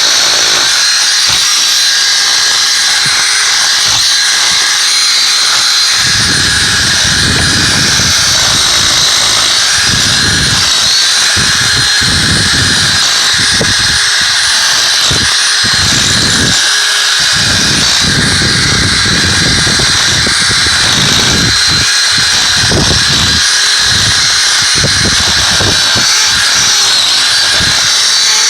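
Makita cordless hammer drill with a 14 mm masonry bit running without a break as it drills out old mortar pointing. A steady high motor whine runs throughout, and a lower rattling comes and goes as the bit bites into the mortar.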